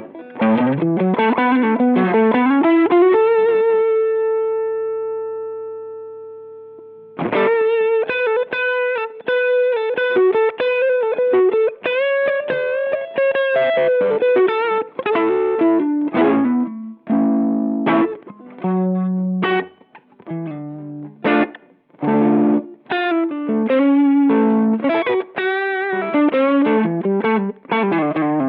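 Overdriven electric guitar played through a Boss SD-1 Super Overdrive pedal: a quick rising run, one long held note that slowly fades out, then a stretch of lead phrases and riffs with a couple of short breaks.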